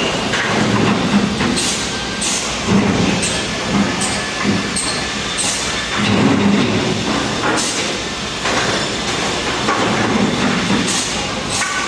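Mostly Printed CNC (MPCNC) machine making rapid short moves: its stepper motors whine and the pitch changes with each move.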